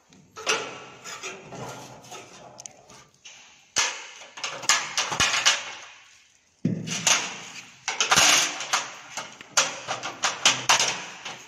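Metal clinks and knocks of a steel bracket and hex bolts being handled and fitted against a stainless steel cot frame: a run of sharp, irregular clatter that grows louder about a third of the way in and again past the middle.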